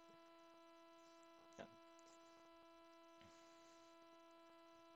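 Near silence with a steady electrical mains hum, with one brief faint sound about one and a half seconds in.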